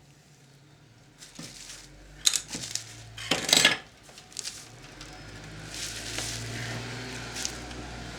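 Metallic clicks and clatter from working on the power cord inside an opened VCR, the loudest knock about three and a half seconds in, followed by a few seconds of steady rubbing noise.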